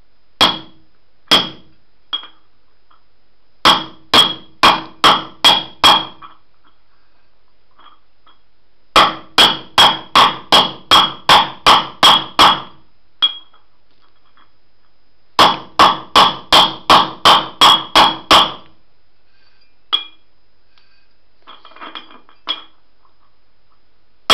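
Claw hammer striking a socket that sits on a ball bearing's outer race, driving the bearing into a go-kart rim: sharp, ringing metallic taps, about three a second, in runs of six to eleven with short pauses between, and a few lighter clinks near the end.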